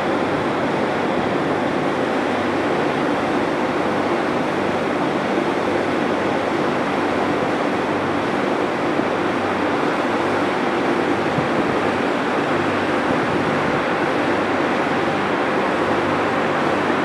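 Steady rushing noise with a low hum underneath, from a ferry's engines and deck ventilation running.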